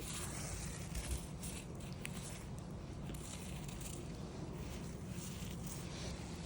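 Steady hiss of rain mixed with falling wet snow, with soft scattered taps and crackles through it.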